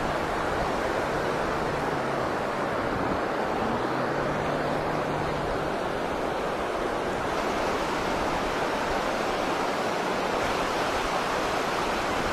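Steady rush of river water running fast over rocks in shallow rapids.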